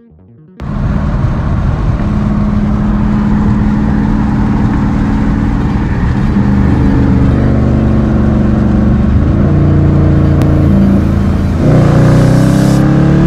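Car engine heard from inside the cabin, running loud and steady. About two seconds before the end it gets louder and starts revving up under hard acceleration, its pitch climbing.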